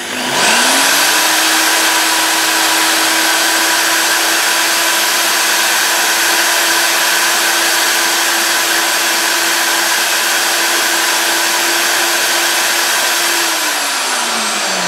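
Electric drill spinning a nail chucked in it while a file is held against it to slim it down: the motor spins up at the start, runs at a steady speed under a constant rasping hiss, and winds down near the end.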